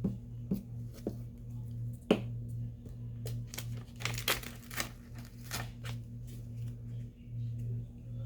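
Paper being handled and torn: a run of irregular crisp rustles and rips, over a steady low hum.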